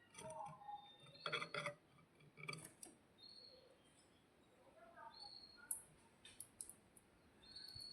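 Faint, scattered canary calls: short high chirps and a few brief wavering lower notes, with sharp clicks between them, during a lull in the song.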